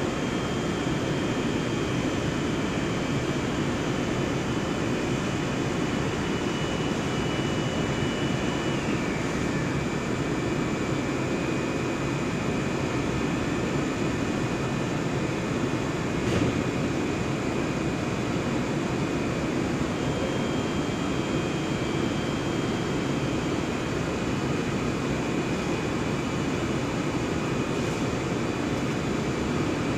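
HDPE blown-film extrusion line running during start-up: a steady machine din with faint high whines, one of which slides down in pitch about nine seconds in, and a single click about halfway through.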